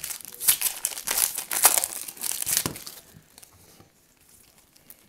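Foil wrapper of a Topps baseball card pack crinkling and tearing as it is ripped open by hand, for about three seconds, then quiet.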